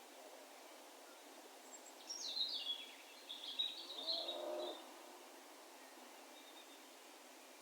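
A distant songbird sings one short, echoing song about two seconds in: a run of notes falling in pitch, then a brief jumbled phrase. A fainter, lower sound lies under its end, over a faint steady background hiss.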